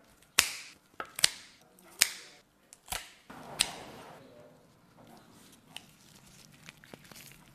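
Kitchen scissors snipping through a raw squab's feet and bones: about six sharp snips in the first four seconds. After that comes quieter handling of the raw carcass as it is pulled apart, with a few faint clicks.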